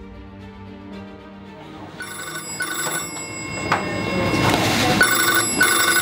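Red hospital telephone ringing with a double ring, twice, starting about two seconds in, over background music: an incoming trauma call.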